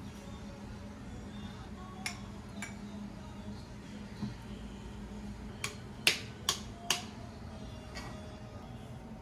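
Sharp clicks and clinks of kitchenware as a metal ladle and glass seasoning jars are handled and set down, with three louder clinks in quick succession a little past halfway.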